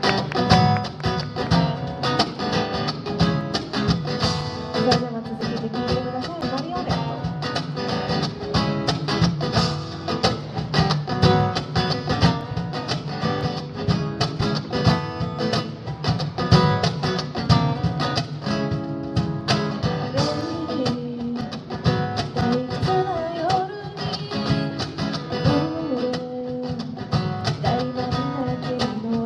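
Acoustic guitar playing an instrumental break in a live song, with steady rhythmic strokes.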